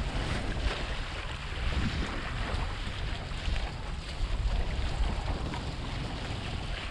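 Wind buffeting the microphone over the rush and slap of water against a windsurf board sailing through choppy water, a steady low rumble and hiss with small splashes throughout.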